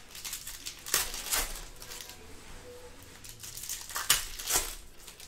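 Foil wrapper of a 2019 Panini Certified football card pack crinkling and tearing as it is ripped open by hand, in two bursts: about a second in and again about four seconds in.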